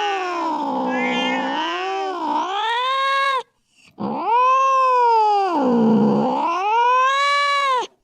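Domestic cat yowling: two long, drawn-out wails, each sliding down in pitch and rising again. There is a short break about three and a half seconds in.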